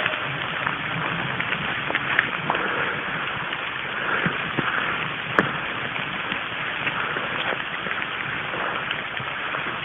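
Steady rustling and brushing as the person filming moves on foot through forest undergrowth and leaf litter, dotted with short sharp clicks, one louder click about five seconds in.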